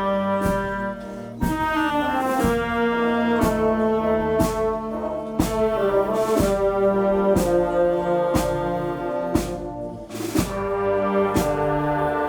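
Azorean filarmónica wind band playing a slow processional march: brass sustaining full chords over a drum beat that falls about once a second.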